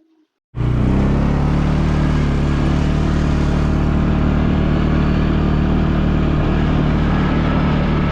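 Four-wheeler engine running at a steady speed while riding, with a constant low drone. It cuts in suddenly about half a second in, after near silence.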